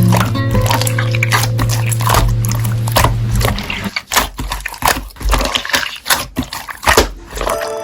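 Slime being squished and pressed by hand, making a run of sticky clicks and wet pops. A held chord of the background song stops about three and a half seconds in.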